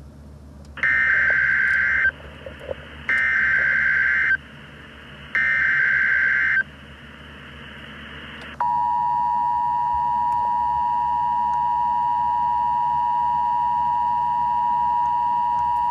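Emergency Alert System severe thunderstorm warning broadcast: three screeching digital header data bursts about two seconds apart, then, from about halfway through, the steady two-tone attention signal.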